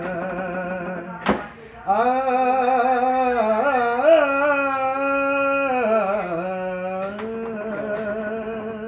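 A man singing a wordless, drawn-out 'aa' alaap, holding long notes with wavering ornaments and glides. A single sharp knock comes about a second in, during a short break in the voice.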